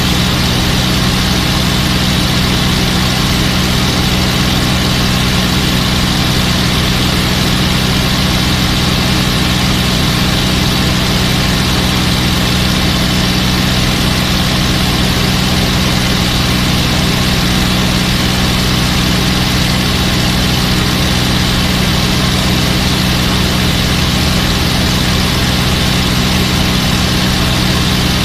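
P-51 Mustang's V-12 piston engine and propeller running steadily at cruise in formation flight, heard from inside the cockpit with rushing wind noise; the pitch and level do not change.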